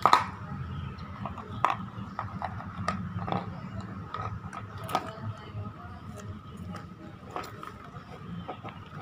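Maltese puppy gnawing and nudging a plastic plate over stones: irregular clicks and knocks of teeth and plastic against rock, the loudest right at the start and again about five seconds in.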